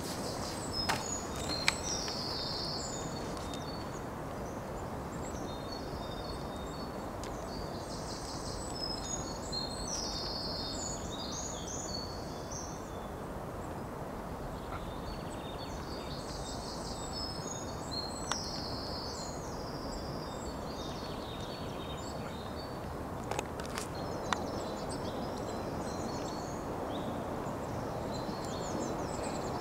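Outdoor ambience: a steady background hiss with a small songbird singing short high phrases every few seconds, and a few faint clicks.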